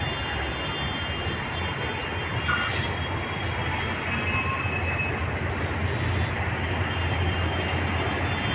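Pakistan Railways HGMU-30R diesel-electric locomotive approaching at the head of a passenger train. Its engine and running gear make a steady low rumble that grows slowly louder as it nears.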